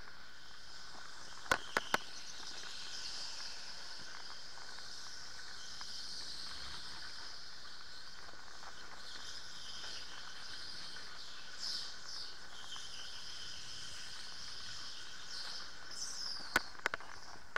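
Electric go-kart motor whining at a steady high pitch that shifts a little as the kart speeds up and slows. There are two quick clusters of sharp knocks, one about two seconds in and one near the end.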